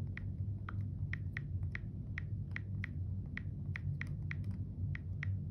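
iPhone on-screen keyboard clicking as text is typed, short ticks at about three a second, over a low steady hum.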